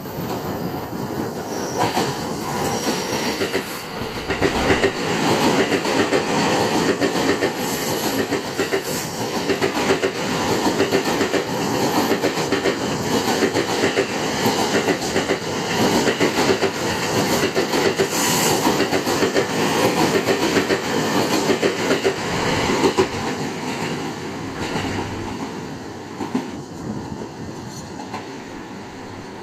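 A JR East E231-1000 series electric multiple unit passing through a station at speed without stopping, its wheels running over the rails. The sound grows louder about four seconds in, stays loud for most of the pass, and fades away over the last few seconds.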